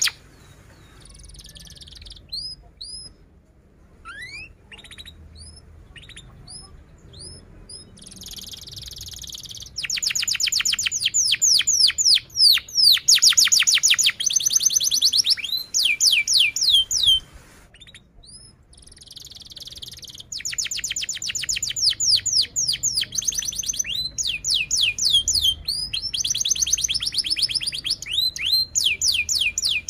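Domestic canary singing: scattered soft chirps at first, then loud, rapid trills of repeated downward-sweeping notes mixed with buzzy rolls. The trills break off briefly a little past the middle and then resume.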